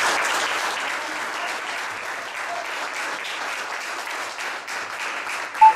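A small group applauding, the clapping slowly dying down. Just before the end a loud steady high tone cuts in.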